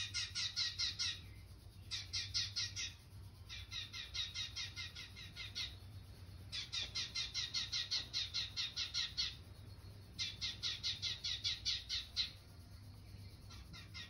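Sparrows chirping from a bird video played on a TV, in quick runs of many chirps a second broken by short pauses.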